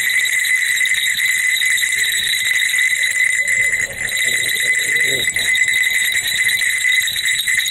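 Small metal jingle bells on the horns of a jester mask jingling continuously as the wearer shakes his head; a steady, high ringing.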